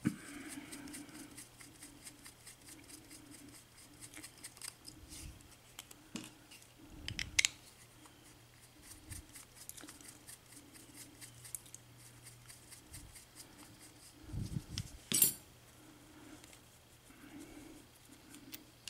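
Small metal clicks and clinks of a pin-tumbler lock cylinder and tools being handled as the picked lock is taken apart, with a sharper click about 7 seconds in and the loudest one about 15 seconds in.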